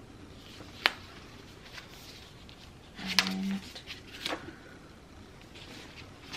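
Hardcover book being handled and opened, with a sharp tap about a second in and small page and cover rustles about four seconds in. A short voiced sound from the woman about three seconds in.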